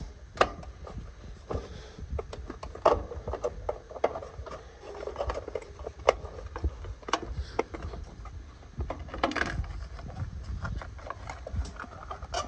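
Hands working around a truck's engine bay and unlatching the plastic fuse box cover: irregular light clicks, taps and scrapes, with a longer scrape about nine seconds in.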